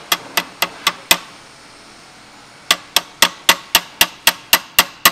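Small hammer tapping a steel pin into the shifter assembly of a Subaru STI six-speed transmission, driving it home: a quick run of sharp taps, a pause of about a second and a half, then steady tapping at about four taps a second.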